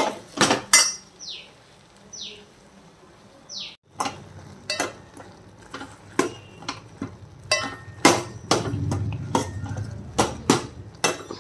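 Steel ladle stirring turkey berries, tomatoes and shallots in a metal pot, knocking and scraping against the pot in irregular clinks. It goes quieter for a few seconds near the start, with three short, high, falling squeaks.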